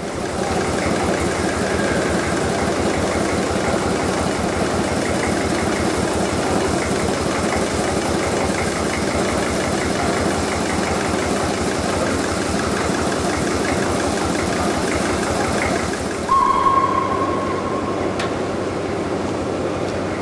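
Steam railway running sounds: a steady, dense rumbling and hissing din from a steam locomotive and its train. About three-quarters of the way through, a short high whistle is held for a second or two, after which the din turns duller.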